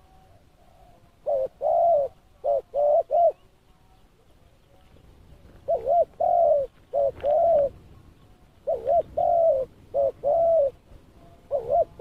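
Spotted dove cooing: bouts of short, low coo notes, each note rising and then falling, about every three seconds. Fainter coos are heard in the first second.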